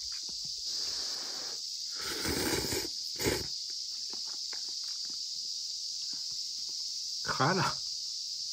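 Noodles slurped from chopsticks: one long noisy slurp about two seconds in and a short one a second later, with small clicks of chewing and chopsticks before them. Cicadas drone steadily throughout.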